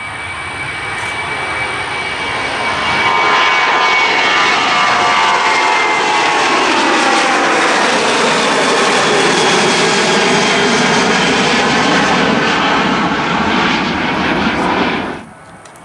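Boeing 737 twin-jet at takeoff thrust climbing out close by: a loud jet roar that builds over the first few seconds, with whining engine tones that slide down in pitch as it passes. It cuts off suddenly near the end.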